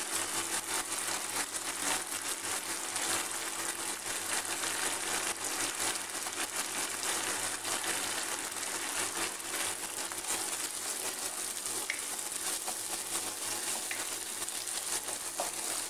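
Raw rice sautéing in oil in a frying pan, a steady sizzle; a wooden spoon stirs through it near the end.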